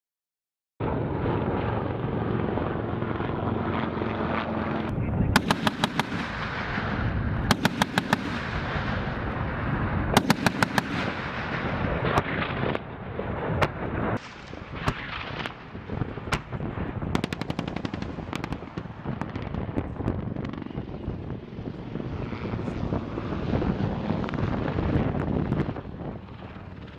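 Automatic gunfire in three short, rapid bursts about two seconds apart, then scattered shots, over a steady background noise.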